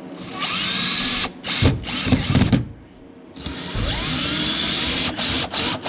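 Power drill running twice, about a second and then about a second and a half, each run spinning up with a rising whine to a steady high pitch. Between the runs there are a few knocks, and near the end the drill is pulsed in short bursts, about four a second.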